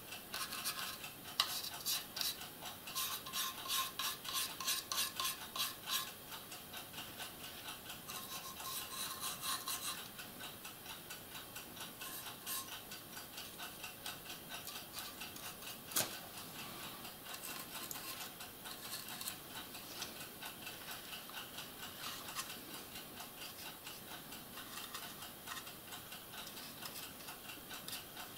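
Small paintbrush dabbing and scratching paint onto a plastic model part: fast, light ticking and scraping strokes, busiest in the first ten seconds, with one sharp tap about 16 seconds in.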